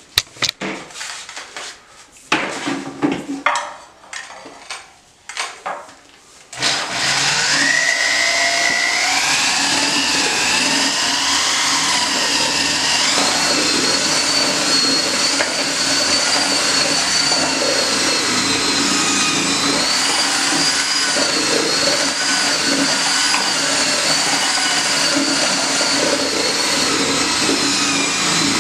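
A few knocks and clatter, then about six seconds in, an electric drill with a mixing paddle starts up in a bucket of tile thinset, its whine rising over several seconds before it runs steadily, mixing the mortar.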